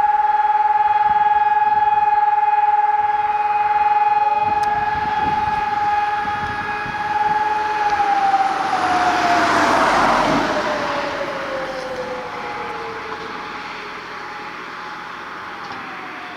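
Public alarm siren sounding the fire-brigade call-out: a steady wailing tone that winds down, falling in pitch, from about eight seconds in. A second, fainter siren tone holds and then also winds down near the end, and a rush of noise swells and fades around the middle.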